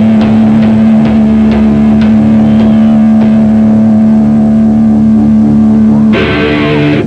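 Heavy metal band playing live. A distorted electric guitar holds one low droning note over drum hits about twice a second, and the chord changes about six seconds in.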